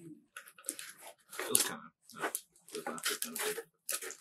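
Flat cardboard mailer being opened and handled: a run of short, irregular cardboard and paper rustles and scrapes.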